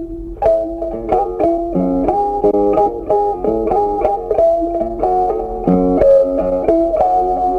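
Background music: a plucked guitar tune with quick, evenly spaced notes.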